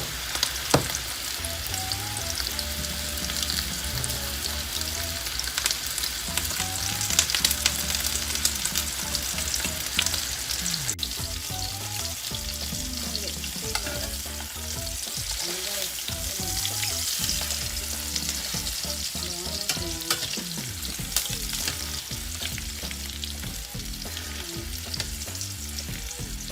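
Breaded chicken breasts sizzling as they fry in oil in a pan, with a steady crackle and scattered sharper pops of spattering oil.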